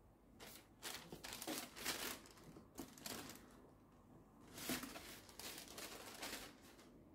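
Tissue paper crinkling and rustling in several irregular bursts as it is lifted out of a shoebox and the sneaker inside is unwrapped.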